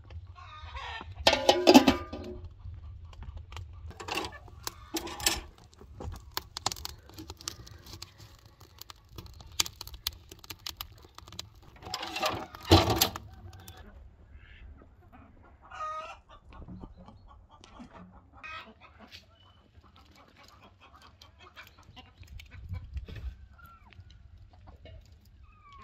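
Farmyard chickens clucking, with a rooster crowing about a second or two in. There is a sharp knock about halfway through.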